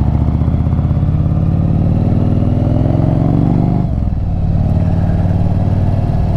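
Yamaha Virago 1100's V-twin engine and exhaust under acceleration, the note rising steadily for about four seconds. It then drops back abruptly and runs on at a steady lower pitch.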